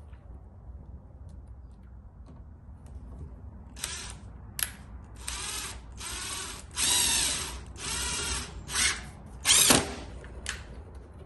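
Ryobi One+ 18V cordless 1/4 in. impact driver driving a screw into wood in a series of short trigger bursts, starting about four seconds in. The bursts are loudest near the end as the screw goes in.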